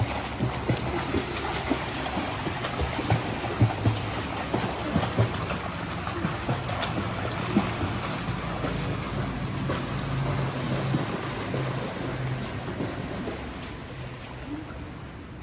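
A swimmer's freestyle arm strokes and flutter kicks splashing in a pool: continuous churning and slapping of water that grows fainter near the end.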